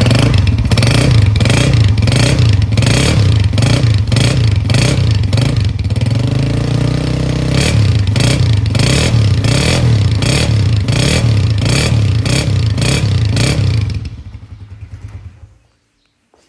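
Honda Deluxe 125's single-cylinder four-stroke engine running through a KYH Atlas Honda steel-craft aftermarket silencer, revved in quick repeated throttle blips with one longer rising rev in the middle. About fourteen seconds in the engine cuts out and dies away.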